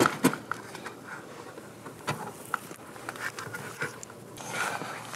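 Wooden frame boards being handled and fitted together: a few light, sharp knocks, the strongest right at the start, with soft scraping and rubbing between them.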